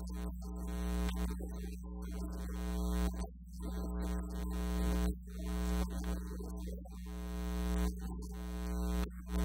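Soft synthesizer keyboard music playing slow sustained chords that change every couple of seconds, over a steady low electrical hum.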